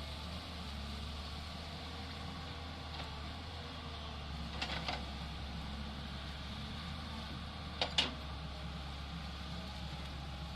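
Tata Hitachi excavator's diesel engine running steadily at a low hum, with two pairs of sharp knocks, about halfway through and about eight seconds in.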